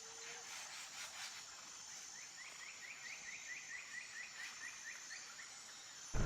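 Faint nature ambience with a run of short, rising chirps, about four a second, starting about two seconds in and lasting a few seconds.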